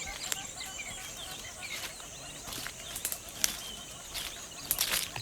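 Wild birds chirping, many short quick calls overlapping, with a few sharp clicks, the loudest about three and a half seconds in, and a brief burst of crackling near the end.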